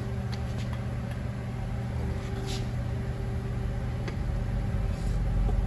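Steady low hum of shop machinery, with a couple of faint light clicks of an aluminium piston with no rings being set down into a cylinder bore of an engine block.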